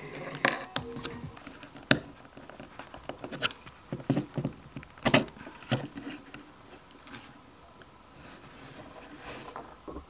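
Small plastic building bricks clicking and clacking as they are pressed together and handled by hand: irregular sharp clicks, the loudest about two seconds and five seconds in.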